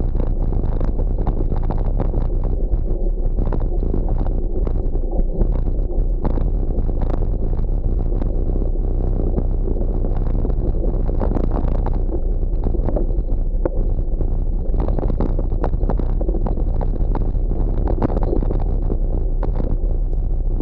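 Rough-trail riding noise picked up by a camera on a gravel bike: a steady low rumble of wind on the microphone and tyres on dirt and grass, with frequent small knocks and rattles from bumps in the trail.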